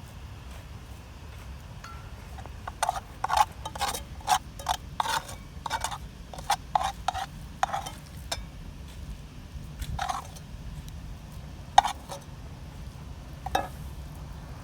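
A run of about a dozen short knocks at roughly two to three a second, then three single knocks spaced a couple of seconds apart, over a steady low rumble.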